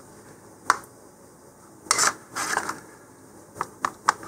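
A painted model rocket handled and turned around on a cutting mat: a few short light knocks and scrapes, one about a second in, a couple in the middle and three quick taps near the end.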